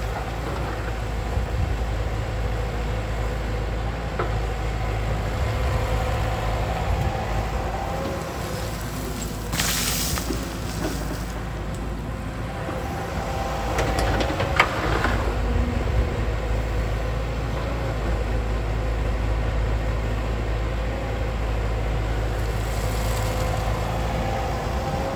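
Hyundai R150L Smart Plus crawler excavator working: its diesel engine runs steadily under load with a held whine. A burst of hiss comes about ten seconds in, and a sharp knock a few seconds later.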